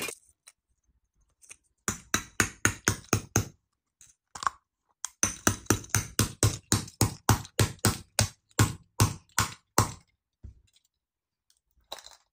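Small toy hammer rapidly tapping a hard plastic gold surprise egg to crack it open: a short run of quick taps about two seconds in, then a longer run of about four taps a second lasting nearly five seconds.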